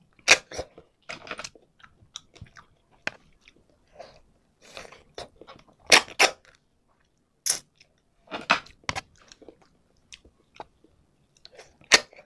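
Close-miked eating sounds: sharp, sudden slurps and lip smacks with quieter chewing between them, as snails cooked in coconut milk are sucked out of their shells by mouth. The loudest slurps come about six seconds in and again near the end.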